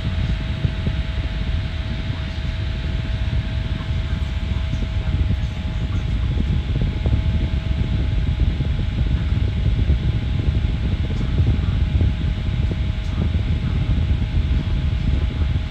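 Opolar USB desk fan running with a steady rush of air and a faint thin tone that fades out about halfway through.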